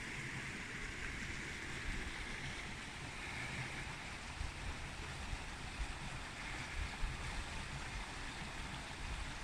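Shallow stream running over a gravel bed, a steady hiss of water, with an uneven low wind rumble on the microphone.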